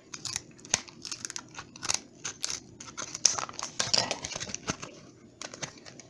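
Scissors cutting open a microSD memory card's packaging: a string of irregular sharp snips and crackles.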